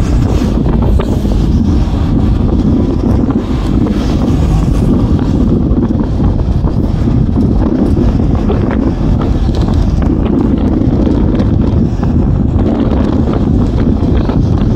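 Loud, steady wind buffeting the microphone at the open window of a moving bus, over the bus's running and road noise.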